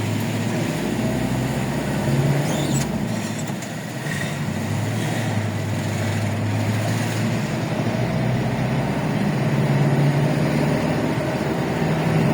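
Vehicle engine running with a steady low hum and road noise, heard from inside the cabin, swelling slightly about ten seconds in.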